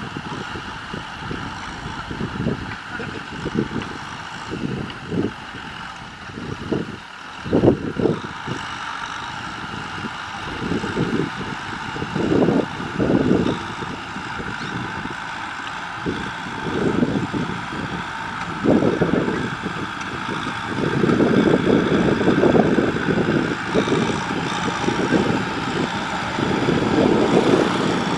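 Kubota M6040SU tractor's diesel engine running steadily under load while pulling a cultivator through dry field soil. Irregular low gusts of wind rumble on the microphone and grow heavier in the last third.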